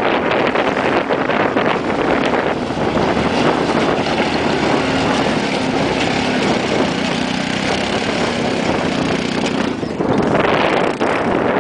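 Side-by-side UTVs driving past close on a loose rocky trail: engine drone mixed with tyres crunching over gravel, and wind buffeting the microphone.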